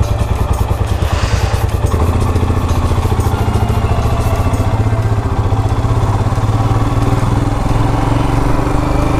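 Motorcycle engine running with a low, rapid pulsing as the bike pulls away from a stop and gets under way, heard from the rider's seat.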